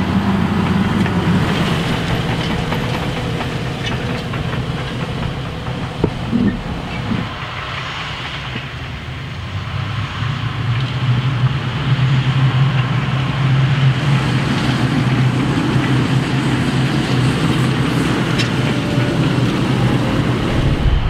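CLAAS Xerion 5000 Trac tractor's diesel engine running steadily under load while pulling a Horsch Joker 12RT disc harrow through stubble, with a continuous rattling clatter from the harrow's discs and roller working the soil. The engine hum grows louder about halfway through.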